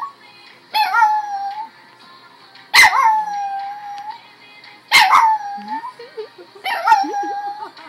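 Chihuahua howling along to music: four drawn-out howls about two seconds apart, each starting abruptly and settling into a held note that falls slightly in pitch.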